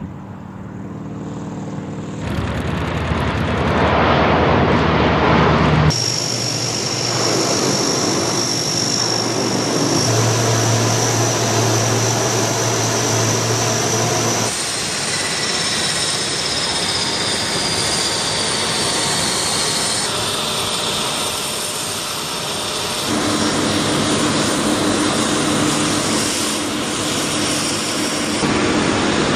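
C-130 Hercules four-engine turboprop running: first climbing out after takeoff, then running on the ramp. It is a steady high turbine whine over a low propeller drone, and the mix shifts suddenly several times.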